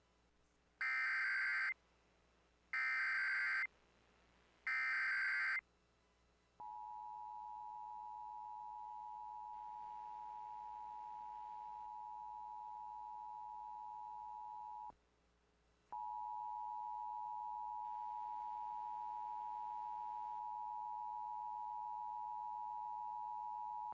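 Emergency Alert System SAME header: three short bursts of digital data tones about a second apart, followed by the steady two-tone attention signal held about eight seconds, a one-second break, then the attention signal again for another eight seconds, announcing an incoming tornado warning.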